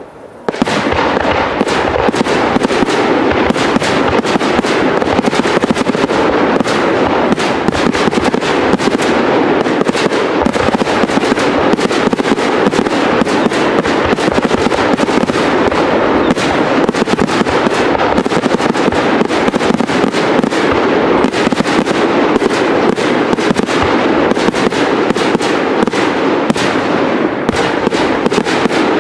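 Professional fireworks display: a dense, rapid, unbroken run of crackling and popping from many bursting shells, starting suddenly about half a second in.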